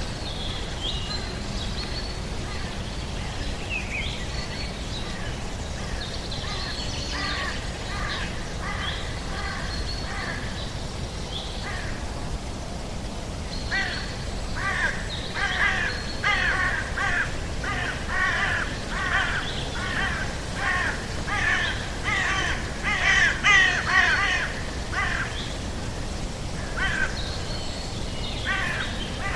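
Natural outdoor ambience of birds calling over a steady low background rush: scattered high whistled notes at first, then, from about halfway, a long run of loud repeated calls, more than one a second, that stops a few seconds before the end.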